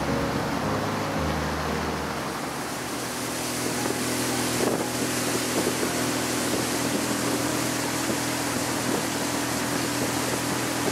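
Small open motorboat under way at speed: its engine drones steadily while water and wind rush past, the engine note shifting slightly about a second in.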